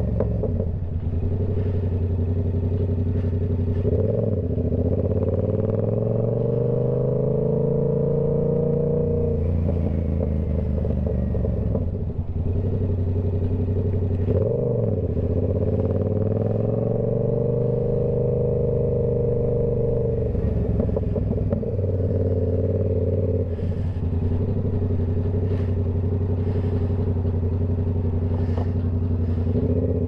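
Yamaha R7 motorcycle's parallel-twin engine running at highway speed, its note climbing and levelling off, then dropping briefly and climbing again several times as the throttle is rolled off and reopened.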